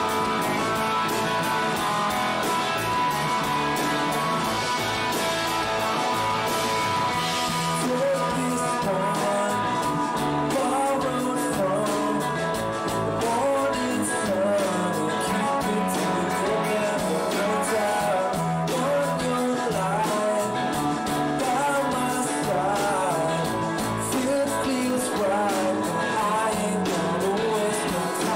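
Live rock band playing: distorted electric guitars, bass guitar and drum kit, with a lead vocal singing from about eight seconds in.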